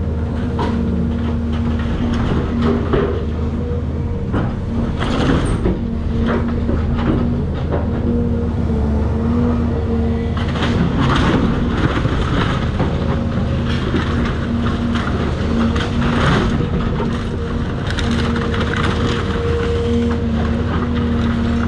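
Cat 336 excavator's diesel engine running steadily under load, with irregular crunching and cracking of demolition debris, heaviest about five seconds in and again between about ten and seventeen seconds in.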